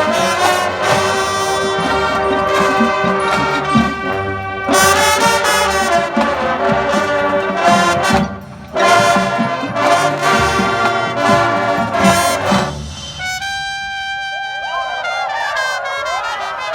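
Marching band brass playing loud full chords, with a brief break about eight seconds in. About thirteen seconds in it falls to a softer held chord, and a wavering solo line with bending notes enters over it.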